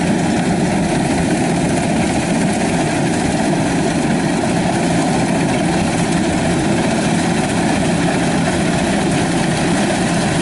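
Kubota DC-93 combine harvester's diesel engine running steadily while the machine cuts rice through a flooded paddy.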